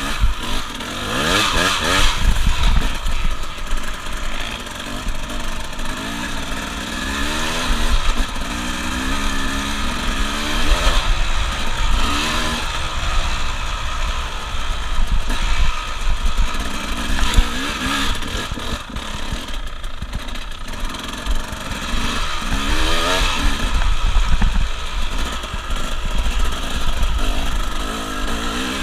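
Dirt bike engine revving up and down repeatedly while being ridden, its pitch rising and falling again and again with the throttle.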